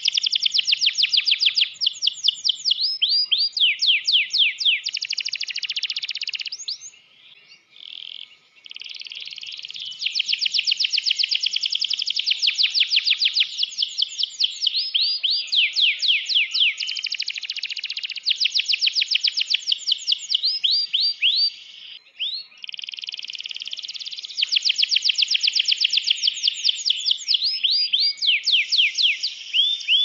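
Domestic canary singing at full strength, a long song of rapid trills made of fast downward-sweeping notes repeated many times a second. The song breaks off briefly about a quarter of the way through and again a little past two-thirds.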